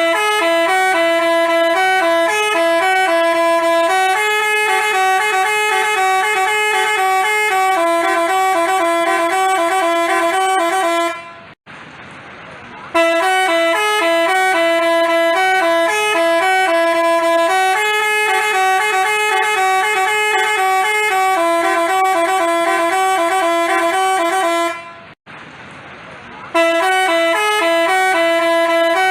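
Basuri telolet bus horn playing a multi-note tune. The same melody of about eleven seconds plays twice, each time fading out into a short pause, and it starts a third time near the end.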